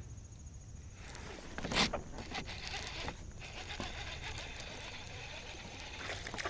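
Scraping and rustling of fishing tackle being handled in a kayak as a small largemouth bass is reeled in and landed, with one louder sharp noise about two seconds in.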